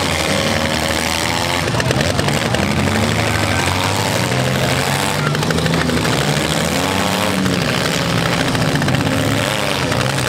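Several compact-car engines revving hard at once, their pitch rising and falling as the derby cars push against one another.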